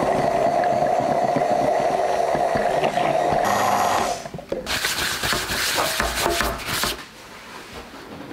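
Immersion (stick) blender running steadily in a glass jar, blending pancake batter of mango, eggs, milk and oat flour. About four seconds in the sound turns harsher and noisier, with crackling, for a few seconds, and then cuts off about seven seconds in.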